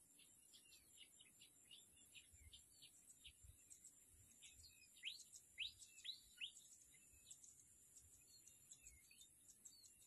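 Faint, quick bird chirps, loudest around five to six and a half seconds in, where several notes sweep in pitch, over a steady high-pitched insect drone.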